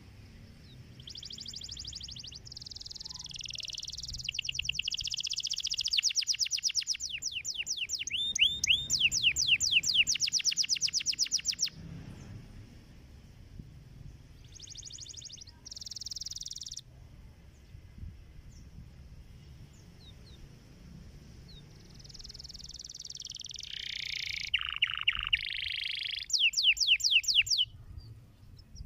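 Domestic canary singing in phrases of high warbling notes and fast trills of rapidly repeated notes: a long phrase over the first twelve seconds, a short burst in the middle, and another trilled phrase near the end.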